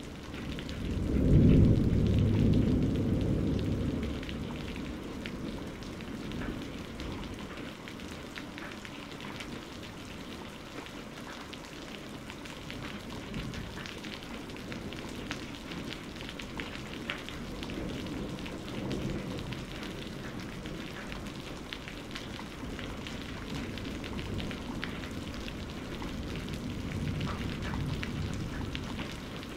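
Gravity-feed airbrush spraying paint: a steady hiss with a fine crackle. Low rumbling swells are heard under it, loudest about one to four seconds in.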